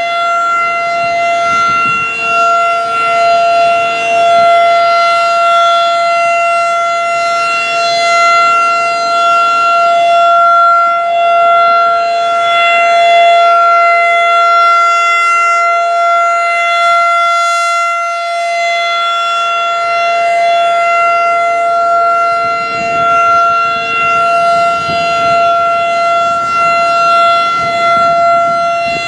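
Federal Signal 2001-DC rotating electromechanical warning siren sounding a steady alert tone, its loudness rising and falling gently as it sweeps. A fainter, lower steady siren tone sounds underneath.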